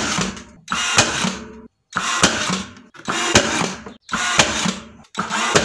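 Nail gun firing nails through timber architrave, about one sharp shot a second, six in all, with the sound cutting out briefly between shots.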